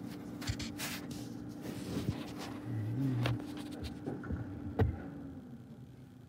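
Garbage truck running in the distance, heard from indoors as a steady hum that fades out near the end, with a few sharp knocks from the phone being handled.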